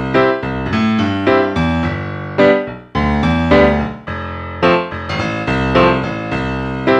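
Background music: an upbeat electric piano tune with a steady rhythm of chords.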